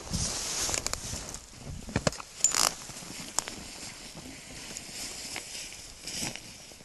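Camera handling noise outdoors: a rushing hiss of air on the microphone with several sharp clicks and knocks, about one, two, two and a half and three and a half seconds in, as the camera is turned.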